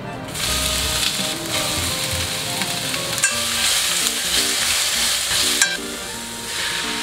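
Sliced carrot and onion sizzling in hot oil in a stainless steel frying pan as they are stir-fried. The hiss starts a moment in and eases briefly near the end before picking up again, with two sharp clicks in between.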